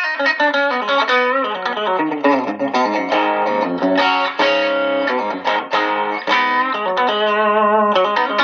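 Short-scale (24 3/4 inch) Slick Tele-style electric guitar on its bridge pickup at full volume, played through an amp: a quick lick of picked single notes mixed with chords, settling briefly on a held chord near the end.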